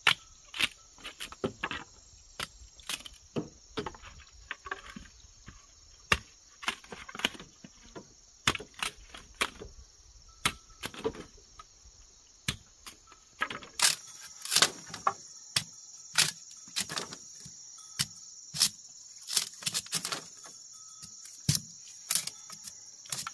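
A steady high-pitched insect chorus with many sharp, irregular clicks and snaps over it. The chorus grows louder about two-thirds of the way in.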